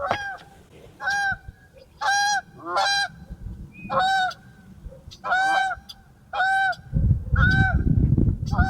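Geese honking over and over from the pond, short calls about once a second. A low rumbling noise on the microphone comes in about two seconds before the end.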